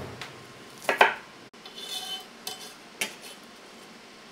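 Kitchen utensils and dishes knocking and clinking: a couple of sharp knocks about a second in, then lighter ringing clinks and a tap near three seconds.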